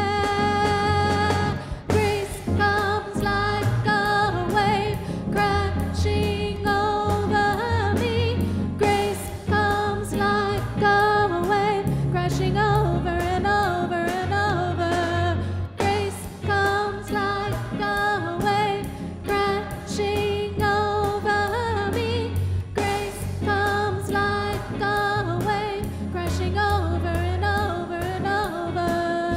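Live worship band playing a song: a woman singing lead over electric guitar, bass guitar, keyboard and drum kit.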